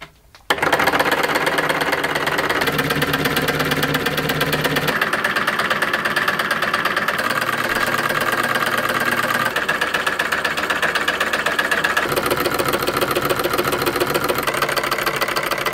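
Home-built V4 solenoid engine running: four copper-wound solenoids pull their plungers in turn, turning a crankshaft and brass flywheel, in a fast, steady mechanical clatter. It starts up on its own about half a second in, as soon as power is connected.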